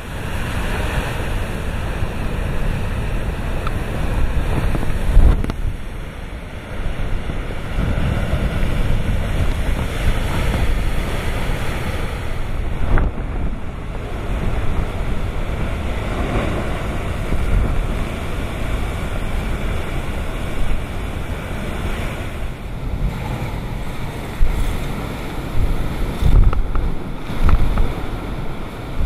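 Typhoon-force wind and heavy surf on the shore, a constant loud rushing. The wind buffets the microphone in gusts, the strongest about five seconds in and near the end.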